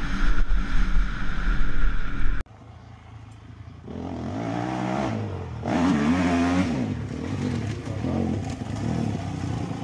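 Motocross dirt bike engine revving as the bike rides the dirt track, its pitch rising and falling with the throttle. First heard from an onboard camera with heavy low rumble on the microphone, then, after a sudden cut about two and a half seconds in, from trackside, where it rises and falls twice as the rider comes down the hill.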